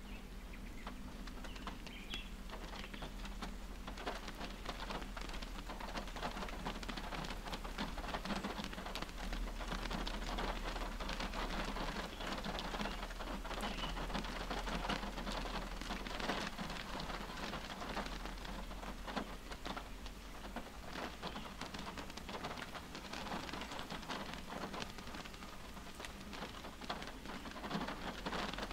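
Rain falling on a car's roof and windshield, heard from inside the car: a steady, dense patter of many separate drops.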